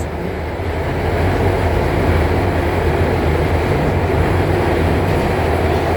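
Guangzhou Metro Line 5 train running at speed between stations, heard from inside the car: a steady rumble and rush with a low hum, slowly building a little about a second in.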